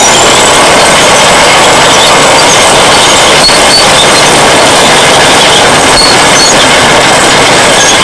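Caterpillar D7 bulldozer's turbocharged diesel engine running hard under load while pushing a stick rake. Its turbocharger whistle finishes a rising wind-up in the first second, then holds a steady high pitch over the loud engine and machine noise.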